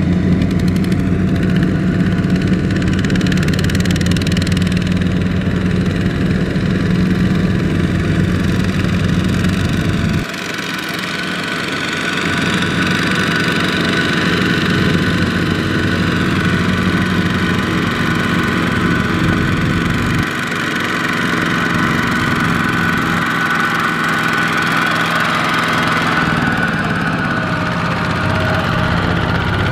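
Single-cylinder diesel engines of Kubota RT120 walking tractors running steadily as they pull trailers through a muddy rice paddy. The sound changes abruptly about ten and twenty seconds in, and a higher engine whine that rises and falls comes in over the second half.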